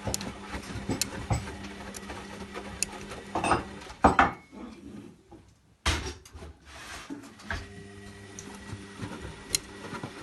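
Zanussi Lindo 100 washing machine running, with a steady motor hum, scattered clicks and knocks from the drum, and one louder rustling bump about four seconds in.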